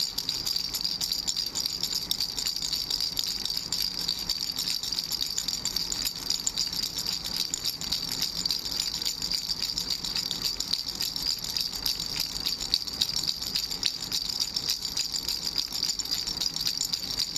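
Baby's three-ball ring rattle being shaken without a break: a dense, steady stream of small rattling clicks with a high ring.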